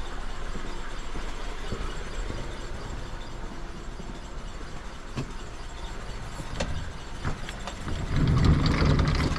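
A vehicle engine running in the background with a few sharp clicks, then growing louder for about the last second and a half.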